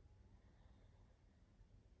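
Near silence: a pause between a sleeping pug's snoring breaths, with only a faint low hum.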